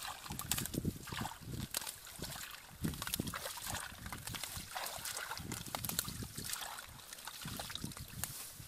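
Hands splashing and sloshing in shallow muddy water, with grass rustling against the microphone in short, irregular clicks.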